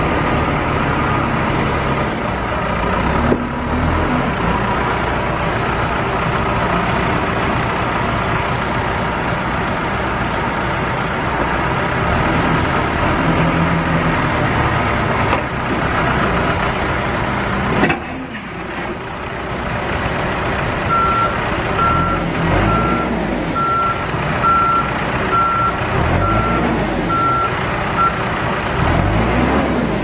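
2011 John Deere 310J backhoe loader's diesel engine running as the machine drives and manoeuvres, engine speed rising and falling in the second half, with a few sharp knocks. About two-thirds in, its backup alarm beeps steadily, roughly once a second, for about seven seconds.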